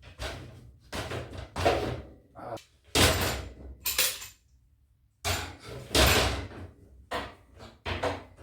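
A run of knocks, clanks and scrapes from heavy steel door-frame parts being shifted and clamped, about eight separate noisy bursts, some brief and some drawn out for up to a second.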